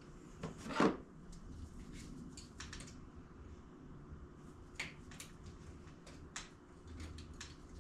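Scattered clicks and clinks of hand tools and metal engine parts being handled, with one louder knock a little under a second in.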